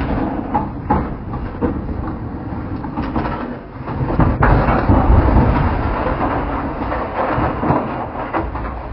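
Tata lorry toppling off a collapsed road edge and rolling over down the embankment: a heavy rumble with knocks and rattling, loudest a little past halfway.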